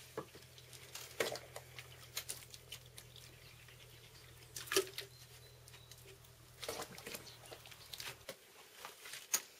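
Hands squeezing wet sawdust briquette mix and packing it into a wooden mould: scattered soft wet squelches, taps and knocks, over a low steady hum that cuts off near the end.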